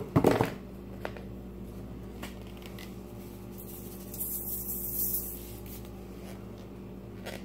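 Seasoning shaken from a shaker onto aluminium foil: a soft, high hiss about four seconds in, with a few light taps and knocks from handling.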